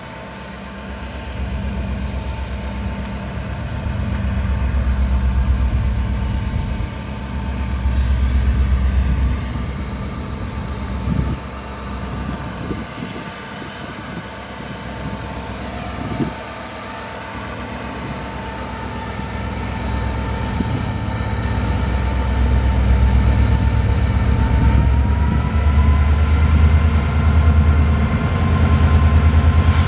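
Twin EMD WDG-4 diesel locomotives, each with a turbocharged 16-cylinder two-stroke EMD 710 engine, accelerating with a fully loaded cement goods train. A deep engine throb swells and eases, and a steady whine steps up in pitch about three-quarters of the way through. The sound grows louder toward the end.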